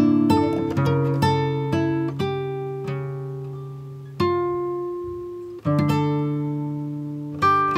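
Background music on acoustic guitar: plucked notes ringing out and fading, with new chords struck about four seconds in, again near six seconds and near the end.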